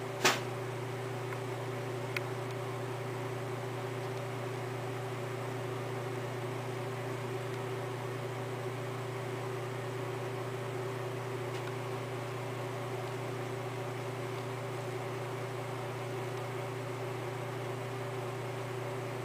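Steady background hum and hiss, with one sharp click about a third of a second in and a faint tick about two seconds later.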